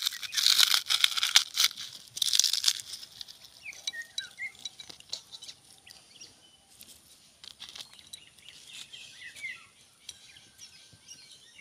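Crisp fried flour papri crackers crunching and crackling as they are broken apart by hand. The crunching is dense and loudest for the first three seconds, then thins to scattered small cracks.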